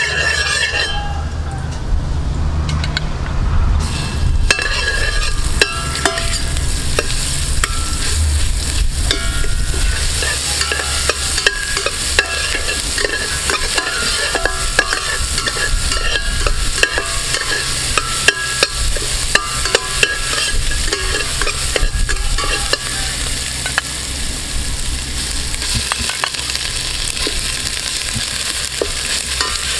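Dried red chilies and curry paste frying and sizzling in hot oil in a stainless steel pot, with a metal spatula scraping and clinking against the pot as it stirs. The sizzle comes on suddenly about four seconds in.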